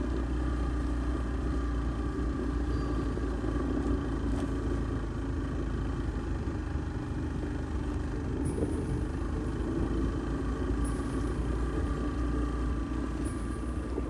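A vehicle engine running steadily, an even low rumble that holds the same pitch throughout.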